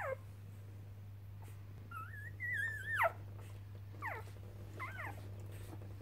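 Newborn Border Collie puppies, two days old, squeaking and whining while nursing: about five short, high squeals, most sliding down in pitch at the end, the longest about halfway through. A steady low hum runs underneath.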